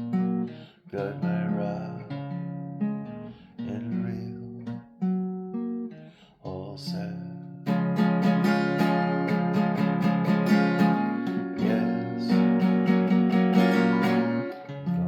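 Instrumental music: acoustic guitar playing chords with no singing. About halfway through, the strumming becomes fuller and louder.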